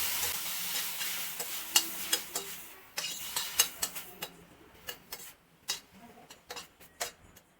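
Grated beetroot sizzling in ghee in a pan while it is stirred, the spoon clicking and scraping against the pan. The sizzle dies down about three seconds in, leaving spaced taps of the spoon on the pan.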